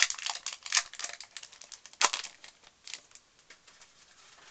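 Foil wrapper of a Pokémon booster pack being torn open and crinkled by hand: a quick run of sharp crackles and rips, loudest about two seconds in, dying away after about three seconds.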